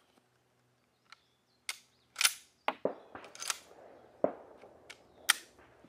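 A string of sharp cracks and metallic clacks from a bolt-action rifle being handled and fired: about ten in all, the two loudest a little over three seconds apart.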